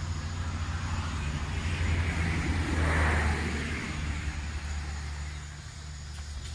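A vehicle passing on a nearby road: its noise builds, is loudest about three seconds in, and fades away, over a steady low traffic rumble.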